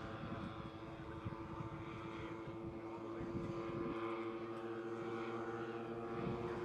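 Twin engines and propellers of a giant-scale radio-controlled Grumman S-2 Tracker model, a steady drone from the plane in flight.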